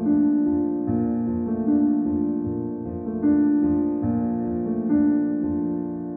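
Background music: a slow piano piece, with new notes struck every second or two and left to ring.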